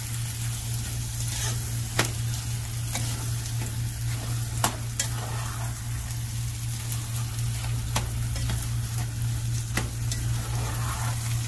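Spiced half-mashed potatoes sizzling in hot oil in a nonstick pan while a silicone spatula stirs them, being fried down well before water is added. The spatula knocks against the pan now and then, over a steady low hum.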